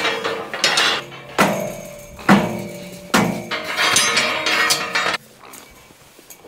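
Galvanised steel livestock hurdles clanging as they are unhooked and moved, each sharp knock followed by a metallic ringing that dies away; several clangs in the first few seconds, then it goes quieter about five seconds in.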